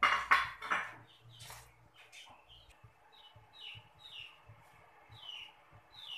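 A metal spatula clattering against a metal wok for about a second, the loudest sound. Then a small bird chirps repeatedly in the background, a short falling note about every half-second.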